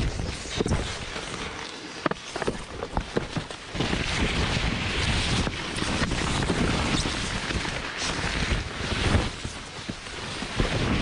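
Wind buffeting the microphone in a rough low rumble, with scattered short knocks and rustles throughout. The rumble grows louder about four seconds in.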